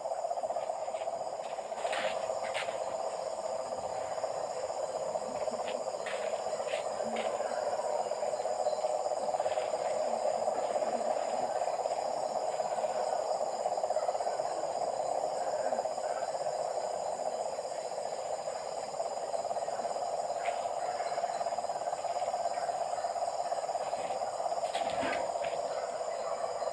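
A dense, steady chorus of many frogs calling together, with constant high-pitched insect calls above it and a few faint clicks.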